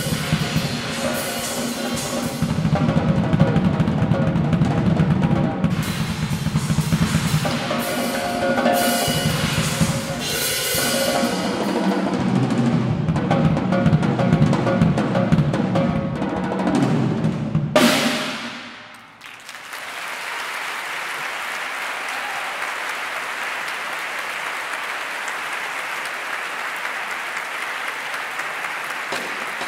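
Solo drum kit playing fast and busy: bass drum, snare, toms and cymbals, ending on a last loud crash about eighteen seconds in that rings away. Then steady applause.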